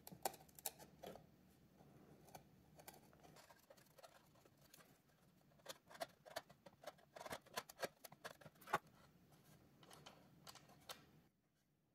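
Bench chisel paring a small hinge mortise in walnut by hand: a run of quiet, sharp clicks and ticks as the edge bites and chips break away, coming thickest a little past the middle.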